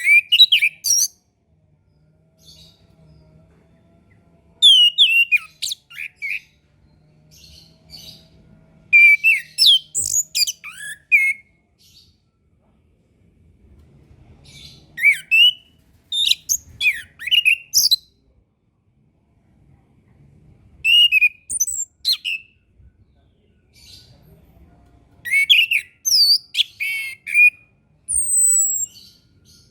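Chestnut-capped thrush singing: short phrases of rapid, varied whistled notes sliding up and down, about every four to five seconds with pauses between, and a single high slurred whistle near the end.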